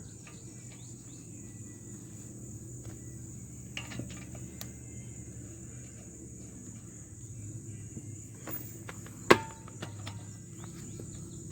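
Steady high chirring of crickets in the background, with a low hum underneath, a few light clicks and one sharp click about nine seconds in.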